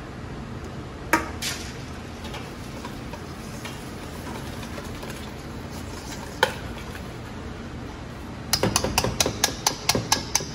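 Wire whisk beating chocolate batter in a stainless steel bowl, the metal wires clinking against the bowl: a single clink about a second in, another about six seconds in, then a quick run of clinks, about six a second, near the end.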